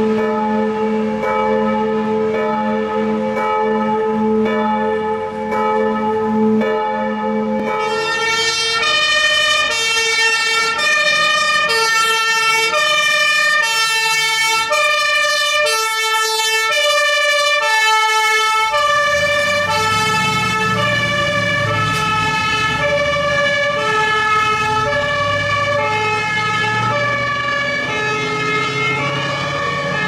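Bells ringing with regular strikes, giving way about eight seconds in to a German fire engine's two-tone Martinshorn siren alternating steadily between two pitches. From about two-thirds of the way through, the truck's engine is heard under the siren as it comes close.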